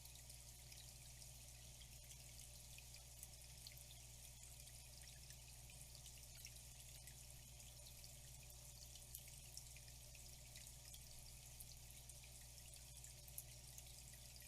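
Faint, steady flowing water with many small scattered drips and splashes, over a low steady hum.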